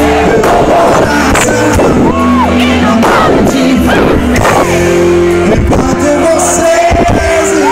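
Loud band music with a singer's voice over sustained chords and regular drum hits.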